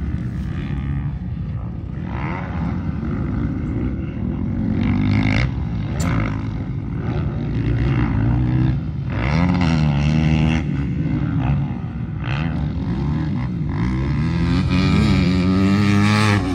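Dirt bike engines revving on the track, their pitch rising and falling again and again with the throttle, loudest about ten seconds in and again near the end.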